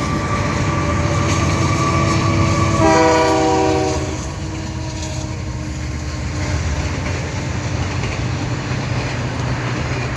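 Canadian Pacific freight train passing close by, its diesel locomotives giving a steady low rumble. About three seconds in, the locomotive's horn sounds one short blast of several notes at once, lasting about a second.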